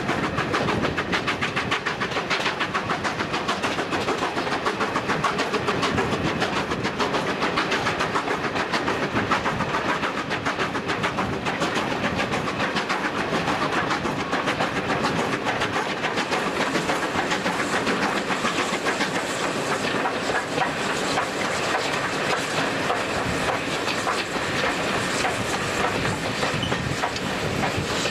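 Steam-hauled train running, heard from an open carriage window: a quick, steady rhythmic beat from the locomotive and the wheels on the track, over a rushing hiss.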